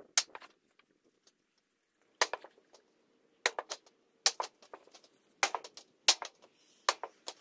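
Hammer tapping on a wooden block laid over a piece of red steel trim to shape it: about a dozen sharp knocks, many in quick pairs, with a short ring after each.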